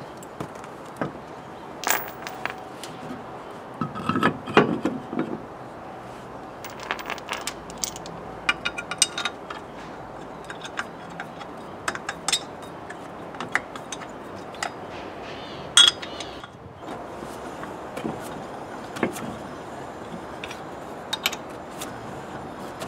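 A steel road wheel being hung back on the hub, with a clunk and scrape about four seconds in, then scattered light metallic clicks and taps as the wheel bolts are put in and turned by hand.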